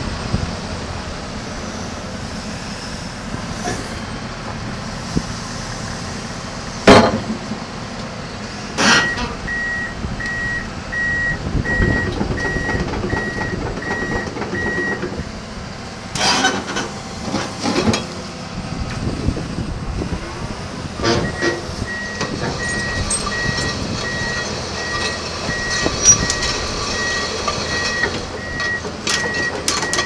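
Komatsu PC200-10 hydraulic excavator running, its travel alarm beeping about twice a second in two spells as the machine moves on its tracks. Several sharp knocks cut through, the loudest about seven seconds in.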